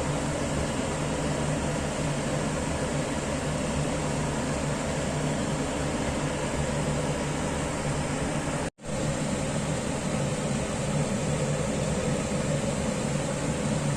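Steady mechanical hum with hiss, like a fan or appliance running, which drops out for an instant about nine seconds in.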